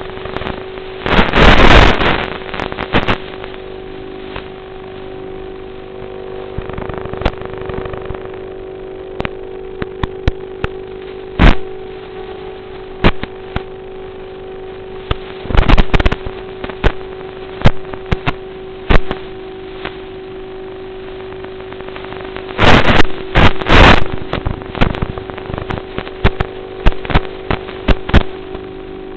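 The twin motors and propellers of a radio-controlled model Cessna run with a steady drone. Sharp crackles and short bursts of noise break in throughout, loudest about a second in and again around 23 seconds.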